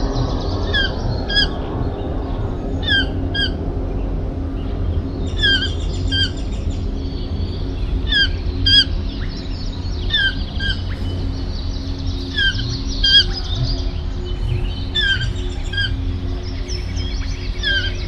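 A bird calling again and again, each call a pair of short downward-sliding notes, repeating about every two seconds, over a steady low rumble.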